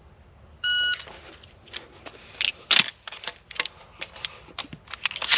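A shot timer beeps once, about a second in, then a run of clicks and metallic clacks as shotgun shells are hand-loaded into a semi-automatic shotgun and its bolt is worked during a speed-reload drill, with a sharp clack near the end.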